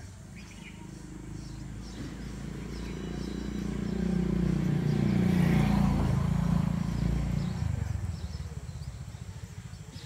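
A motor vehicle driving past, its engine swelling over a few seconds to a peak in the middle and then fading away, with faint high bird chirps over it.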